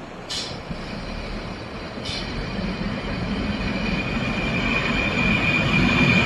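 ALn 776 diesel railcar approaching, its engine and running gear growing steadily louder. A thin high wheel squeal builds towards the end, and two brief high hisses come near the start and about two seconds in.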